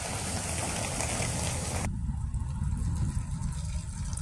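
Road traffic on a slushy, icy street: car and pickup engines and tyres hissing through wet slush, over a low wind rumble on the microphone. About two seconds in the hiss drops away abruptly, leaving mostly the low rumble.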